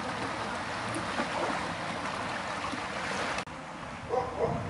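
Motorboat running past on the water: a steady rush of engine and churned wake that cuts off abruptly about three and a half seconds in, leaving a quieter waterside ambience.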